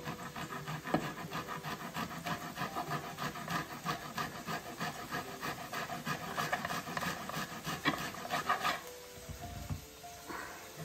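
A piece of thawed, soggy ginger root grated on a hand grater in quick, even rasping strokes, about three to four a second, stopping about nine seconds in.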